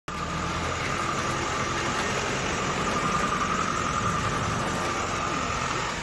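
Wheel loader's diesel engine running steadily, with a steady whine above the engine note.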